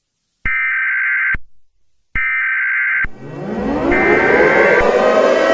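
Emergency Alert System SAME header: three buzzy data bursts of about a second each, a second apart, the digital code that opens an EAS alert. From about three seconds in, a siren-like wail rises and builds under the third burst.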